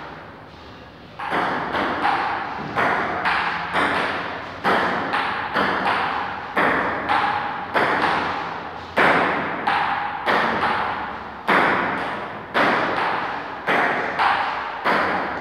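Table-tennis rally: a ping-pong ball being hit back and forth off paddles and table, a sharp click about every half second to a second, each ringing on briefly in an echoing room. The hits begin about a second in.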